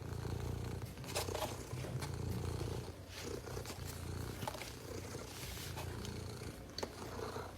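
Domestic cat purring close up, a steady low rumble that swells and eases, with a few faint light clicks.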